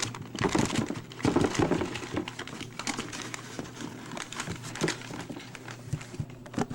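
Packing material crinkling and rustling as a shipping box is rummaged through, with many short knocks and clicks, over a faint steady low hum.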